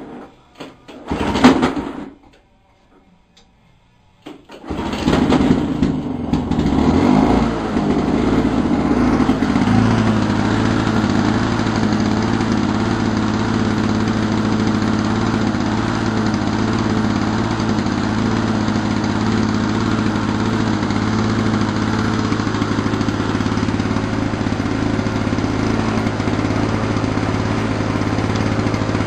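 A 1987 Lawn Boy mower's two-stroke engine is started. A short burst about a second in dies away. About five seconds in the engine catches, runs unevenly for a few seconds, then settles into a steady run, its carburettor freshly cleaned and governor spring renewed.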